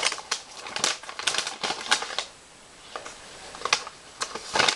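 Crinkling and crackling of packaging as a small decorated paper gift bag is opened and its contents handled: a fast, irregular run of sharp clicks, easing off for about a second midway, then starting again near the end.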